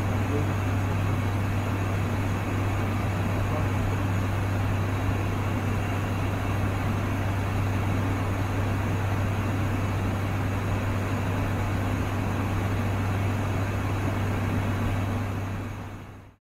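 ATR 72-600 turboprop heard from inside the cockpit in flight: a steady low propeller hum over a broad rushing engine and air noise. It fades out near the end.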